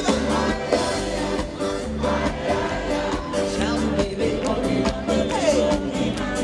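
Live band music with a lead singer: sung vocals over electric bass, drums and keyboards, with a steady beat.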